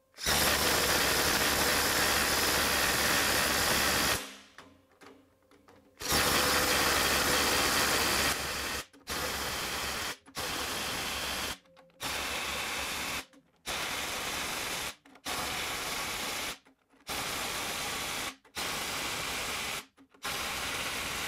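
Ridgid R862311 brushless cordless impact driver in its top mode 3 hammering nuts tight in ten separate runs. The first run lasts about four seconds, the second a couple of seconds, then eight short runs of about a second each with brief breaks, sped up fourfold.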